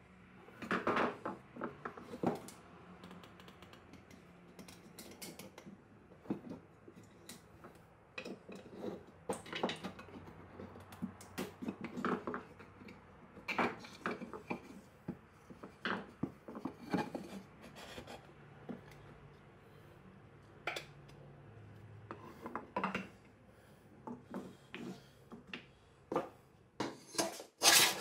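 Screwdriver tip scraping and picking at old painted timber parts, with irregular knocks and clatter as the wooden pieces are shifted on the workbench. Louder scraping strokes come near the end.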